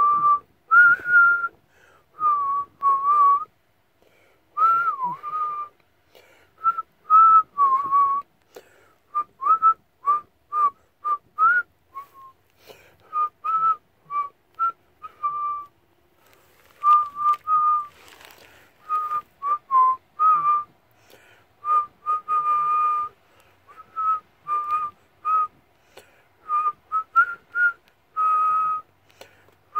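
A person whistling a tune through pursed lips: a run of short notes with small slides in pitch and audible breath, broken by a few brief pauses.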